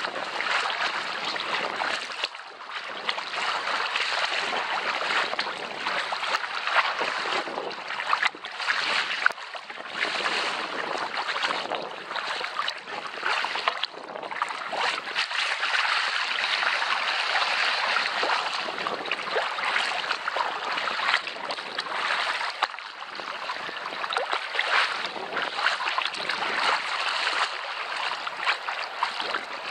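Choppy sea splashing and lapping against a sea kayak's hull as it is paddled, with paddle blades dipping and pulling through the water, heard close up from the kayak's deck. The water noise rises and falls unevenly with brief splashes throughout.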